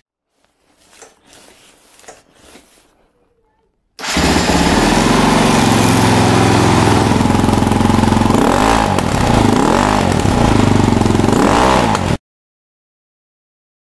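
Husqvarna TE 450 enduro motorcycle's single-cylinder four-stroke engine running loud through its exhaust, blipped up and back down about four times, then cutting off suddenly. A few faint knocks and rustles come first.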